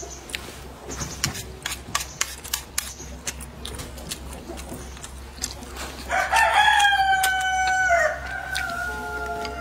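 A rooster crows once, starting about six seconds in: a long drawn-out call that steps slightly down in pitch near its end. Before it there are only soft clicks of eating and chopsticks on a plate.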